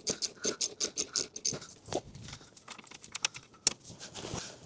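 Ratchet wrench clicking in quick irregular runs as a loosened 10 mm bolt is backed out through a 3D-printed polycarbonate-carbon-fibre socket, with one sharper click near the end.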